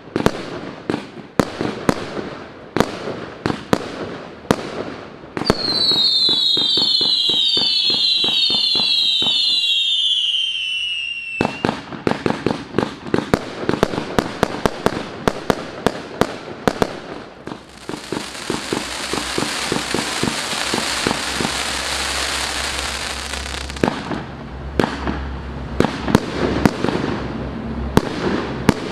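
A 180-shot fireworks cake (FUROR FC180MK-1, 20, 25 and 30 mm tubes) firing in rapid succession, a fast string of launch bangs and bursts. About six seconds in, a run of shrill whistles glides downward for several seconds. Later comes a long stretch of dense crackling before the bangs resume.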